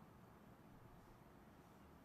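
Near silence: faint steady room tone with a low hum.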